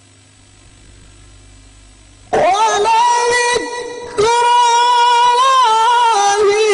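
Male qari reciting the Quran in the melodic tilawah style, in maqam nahawand. A low steady hum comes first. About two seconds in, the voice enters on a long high held note, dips briefly, then carries on in long ornamented phrases that bend in pitch.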